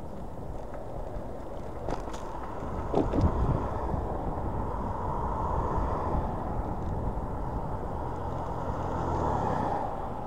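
Steady rumble of wind and road noise while riding a Hiboy S2 Pro electric kick scooter, with a few short clicks about two and three seconds in.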